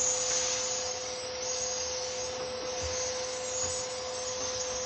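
Vacuum cleaner running steadily, drawing air through a dryer vent cleaning hose: an even rushing hiss with a steady whine on top.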